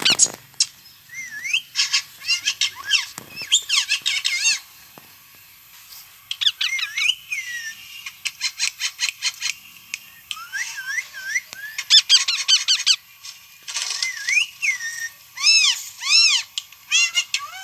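Young parrots calling: repeated shrill squawks and screeches that rise and fall in pitch, some delivered in rapid runs of short harsh notes.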